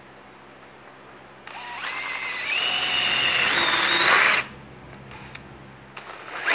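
DeWalt cordless drill driving a hole saw through a perforated metal exhaust header gasket. The motor whine rises about a second and a half in, holds steady for about three seconds of cutting, then stops suddenly.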